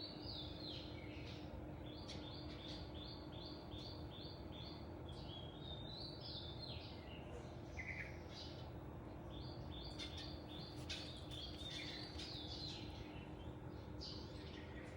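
A small songbird singing: runs of short, high chirping notes, each dipping slightly in pitch, repeated about three a second, with a pause of a few seconds in the middle. A faint steady hum lies underneath.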